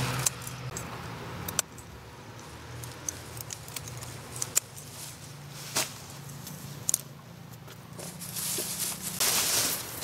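Garden scissors snipping through yam bean (jicama) vine stems: several sharp snips a second or more apart, over a low steady hum. Near the end, a rush of leaf rustling.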